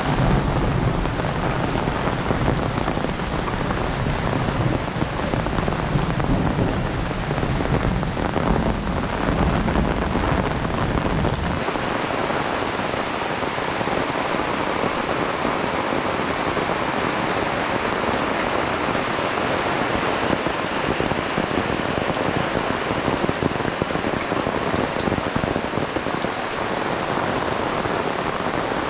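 Heavy rain falling steadily, a dense even hiss of rain on surfaces. A deep low rumble underneath stops abruptly a little under halfway through, leaving only the rain.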